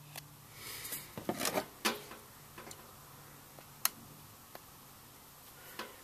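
Handling noise from a handheld two-pole voltage tester and its probes being picked up and moved: a handful of light plastic clicks and knocks, with a short rustle about a second in.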